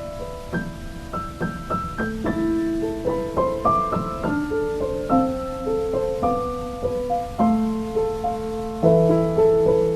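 Slow, calm solo piano music, single notes struck a few times a second and left ringing over one another, with a faint steady hiss beneath.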